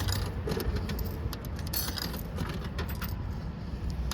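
Coins jingling and clicking as a handful of yen coins is sorted and fed into a vending machine, many small sharp clinks over a steady low background rumble.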